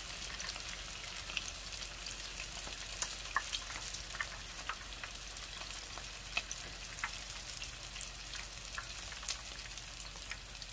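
Battered shrimp deep-frying in hot oil: a steady sizzle with frequent sharp crackles and pops.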